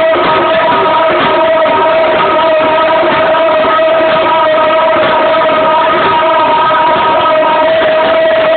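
Loud dance music from a DJ set, with long held sung notes over a dense mix.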